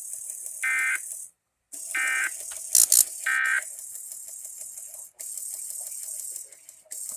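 NOAA Weather Radio Emergency Alert System end-of-message code: three short bursts of warbling data tones about a second and a half apart, over steady radio static. A pair of sharp clicks comes between the second and third burst.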